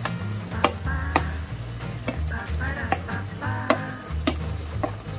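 Wooden spoon scraping and knocking against a plate and the rim of a cooking pot as chopped spring onions are pushed into a simmering vegetable stew, with a handful of sharp clicks spread through.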